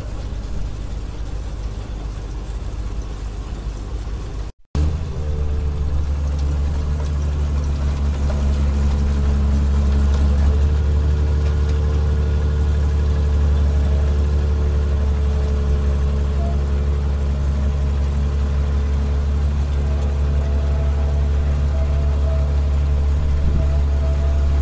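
Engine of a tracked rice combine harvester running steadily as the machine manoeuvres, a continuous low drone with a steady hum above it. The sound cuts out briefly about four and a half seconds in, and the drone is louder and more even after the break.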